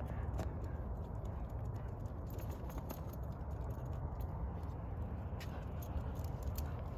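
Footsteps on a sidewalk, as light irregular clicks over a steady low rumble.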